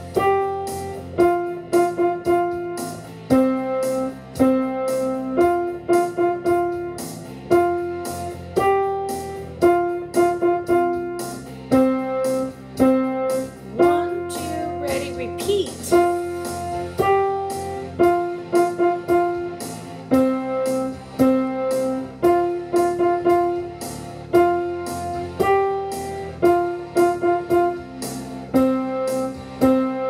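Piano playing a simple melody of single notes in a steady, repeating pattern.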